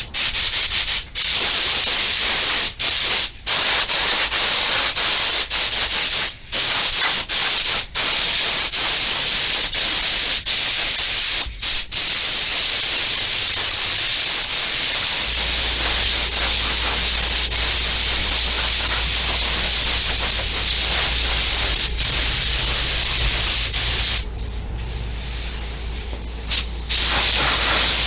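Primer being sprayed onto a new steel front panel: a steady hiss of spray, broken by several short pauses as the spray stops and starts, and weaker for a couple of seconds near the end. A low steady hum sits underneath from about halfway in.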